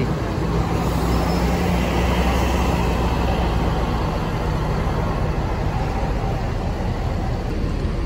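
A bus's diesel engine running, a steady low drone that eases off after about five seconds, over the general noise of vehicles moving in the terminal.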